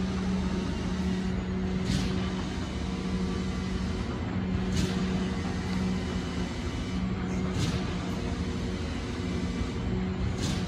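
Standing E259 series Narita Express electric train giving a steady low hum, with a short hiss about every three seconds.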